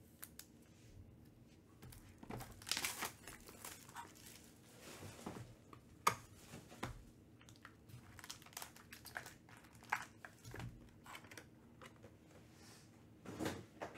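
A trading-card hobby box being opened and its foil card pack handled: faint crinkling, tearing and clicking of cardboard and foil wrapper in short scattered bursts.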